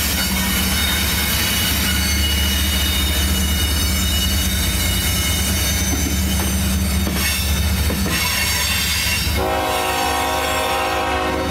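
Freight train rolling past at close range, with a steady low rumble and a high wheel squeal. About nine seconds in a train horn starts sounding a held chord that lasts to the end.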